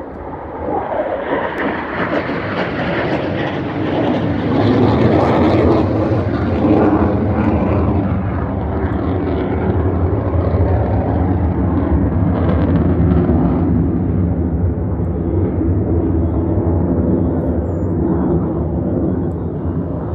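Blue Angels F/A-18 Super Hornet jet roar passing overhead. It swells over the first few seconds, is loudest about five to seven seconds in, holds, then eases off slightly near the end.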